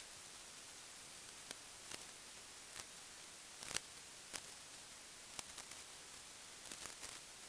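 Faint, scattered light ticks and rustles of a pen and hands working over paper templates taped onto Depron foam sheets, over a steady hiss.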